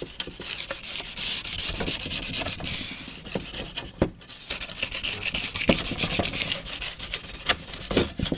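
Sandpaper rubbed by hand back and forth over a van running board's step surface in quick strokes, scuffing it rough so the tread's adhesive will bite. There is a short break about halfway through.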